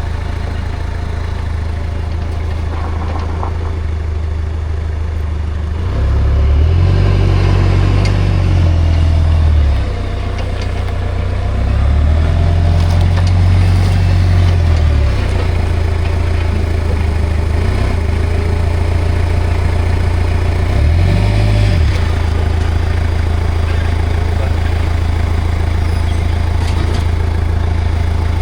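Komatsu 30 forklift engine idling, with the newly installed hydraulic main pump fitted. The engine speeds up and settles back three times: two longer rises about a quarter and half way through, and a short one about three quarters of the way through.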